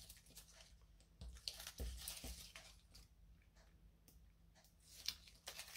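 Faint crinkling and rustling of card and paper being handled, loudest in a short burst a second or two in, with a small sharp click about five seconds in.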